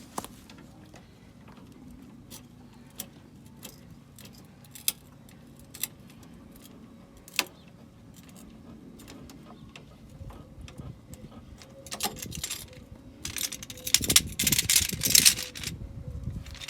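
Metal hand tools and parts clinking as they are handled: scattered sharp clicks, then a loud stretch of rattling and clattering lasting about three seconds near the end.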